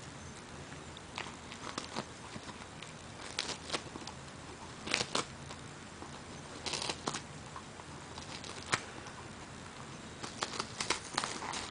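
Dachshund chewing and gnawing on a frayed rope toy: irregular clusters of short crackling, tearing clicks that come every second or two.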